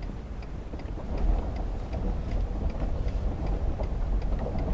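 Pickup truck rolling slowly, a steady low engine and road rumble heard from inside the cab. The hazard flasher ticks lightly and regularly, about three times a second.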